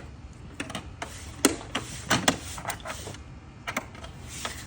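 Hard plastic air filter housing and engine cover parts being handled and pushed into place, giving a scatter of irregular clicks and knocks, the sharpest about one and a half and two seconds in.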